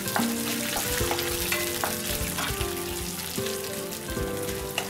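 Mustard seeds, chana dal, urad dal and dried red chillies sizzling in hot oil in a wok, with a wooden spatula stirring and scraping through them: a South Indian tempering being fried.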